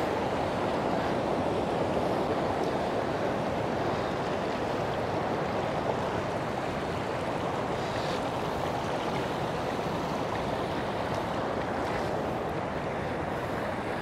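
Kaveri River rushing over rocky rapids: a steady, even rush of water.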